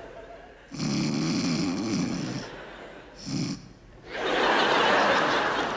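Exaggerated snoring: a long, low rumbling snore of about two seconds, a short snort, then a loud breathy blowing out near the end.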